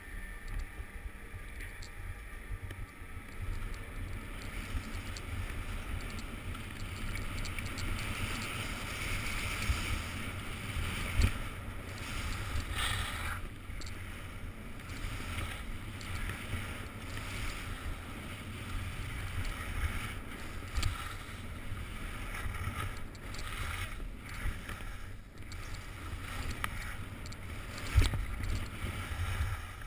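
Skis scraping and carving over packed snow in a steady swishing hiss, with wind rumbling on the microphone. A few sharp thumps from bumps in the run, the loudest near the end.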